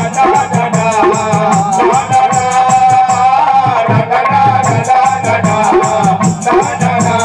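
Live devotional bhajan music from a folk ensemble: a held, wavering harmonium-like melody over a dholak and a steady rattling percussion beat, with no sung words.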